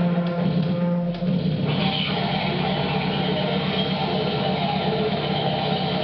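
Harsh noise: a loud, dense wall of distorted electronic noise over a steady low drone, improvised live on computer music software. Near the start the upper hiss drops away for about a second and a half, then comes back.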